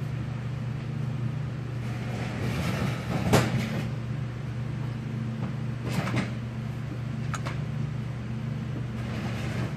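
Small metal carburetor parts being handled and set down during reassembly: a few sharp clicks and knocks, the loudest about three seconds in and others around six and seven seconds, over a steady low hum.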